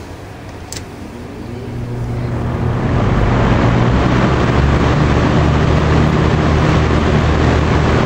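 Vintage Lakewood P-223M 20-inch box fan starting up: a click just under a second in, then the motor spins up with a faint startup hum and the air rush grows over about three seconds before it settles into steady running with a low motor hum.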